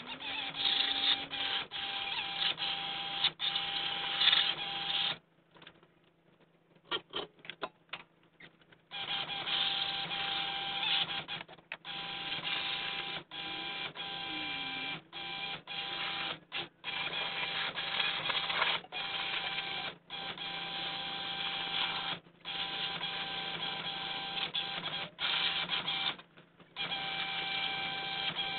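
Compressed-air tool on a hose hissing in long bursts of several seconds, separated by short breaks, with a steady whine running through it. It is quieter and choppy for a few seconds around five to nine seconds in.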